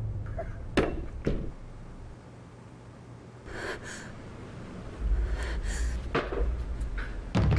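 A woman's sharp breaths and gasps, with a few sharp clicks or knocks. A low rumble fades out about two seconds in and comes back about five seconds in.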